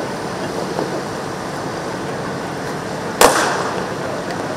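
A cricket bat striking a ball in the practice nets: one sharp crack about three seconds in, over steady background noise.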